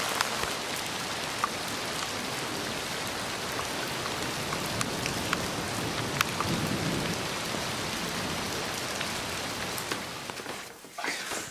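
Steady rain with scattered sharp drop ticks. It cuts off about ten and a half seconds in.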